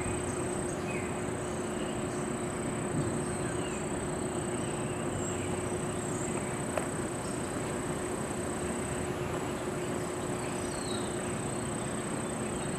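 Steady outdoor background noise with a constant low hum and a high, thin steady whine, a few faint short chirps, and a single sharp click about seven seconds in.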